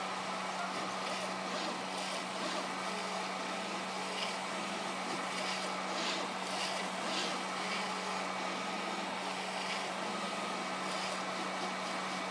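Bukobot 3D printer with a prototype Spitfire extruder running a fast print: stepper motors drive the print head and bed, over a steady hum, with short higher-pitched whirring bursts scattered through.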